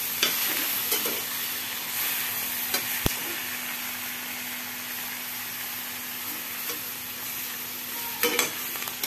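Dried salted squid, tomato, chillies and petai sizzling as they are stir-fried in margarine in a stainless steel wok, being cooked until half done. A metal spatula scrapes and clicks against the pan now and then, with a sharp knock about three seconds in and a cluster of clicks near the end.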